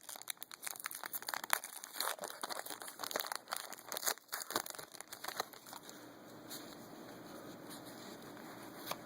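Foil trading-card pack wrappers and cards crinkling and crackling as they are handled, in quick irregular bursts that die down after about five seconds to a faint hiss.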